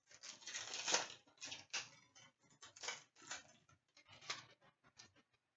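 Upper Deck hockey trading cards being flicked through and a foil pack wrapper handled: an irregular run of quick rustles, crinkles and card clicks, busiest about a second in.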